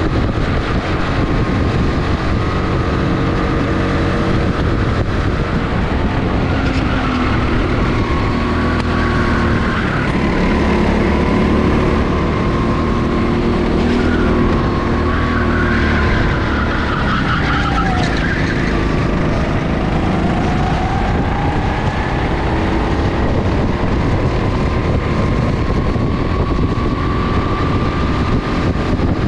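Go-kart engine running hard at track speed, heard from on board the kart. About two thirds of the way through its note drops, then climbs steadily again as the kart eases off and accelerates back onto a straight.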